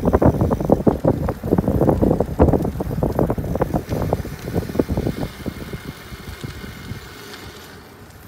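Wind buffeting the microphone, with road rumble and rattle from a Catrike 700 recumbent trike rolling along. It dies away over a couple of seconds, about five seconds in.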